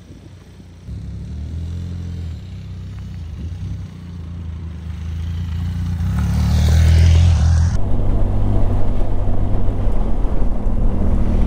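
Benelli TRK 502X parallel-twin motorcycle engine running as the bike pulls away and rides closer, growing louder. About three-quarters of the way through it cuts abruptly to the engine heard from on the moving bike, with rushing noise.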